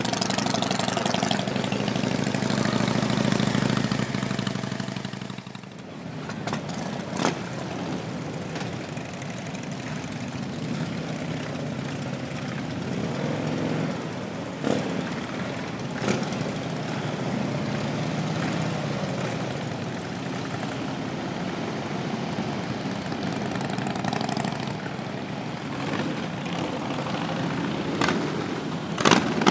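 A group of Harley-Davidson V-twin touring motorcycles idling and running. After a break about five seconds in, motorcycles ride past one after another.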